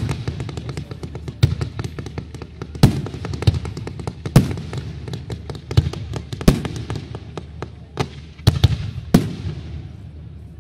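Fireworks display: sharp bangs about once a second over dense crackling, each bang trailing off in an echo.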